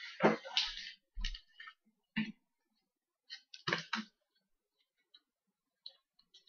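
A few short crackles and clicks of trading-card packs and cards being handled, mostly in the first four seconds, then only faint scattered ticks.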